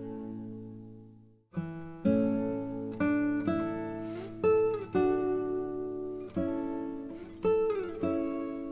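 Background music of plucked acoustic guitar notes and chords. It fades to silence about a second and a half in, then starts again, with a few notes sliding in pitch.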